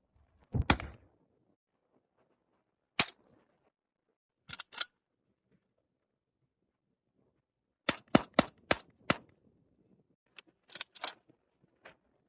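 Citadel Boss 25 semi-automatic 12 gauge shotgun firing birdshot. Single shots and a pair come first, then fast strings of about five shots in little over a second.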